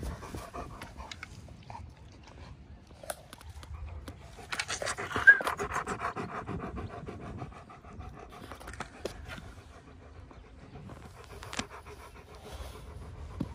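A German shepherd panting close to the microphone in quick, rhythmic breaths, heaviest from about four and a half to seven and a half seconds in, with a brief high squeak near five seconds.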